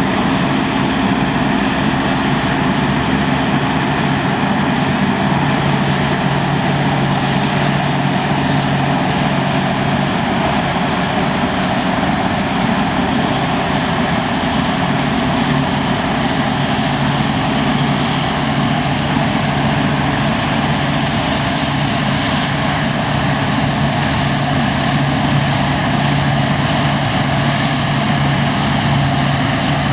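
New Holland CX8.70 combine harvester running steadily while harvesting barley: a continuous engine hum under a broad, even rush of machinery noise, with no change in pace.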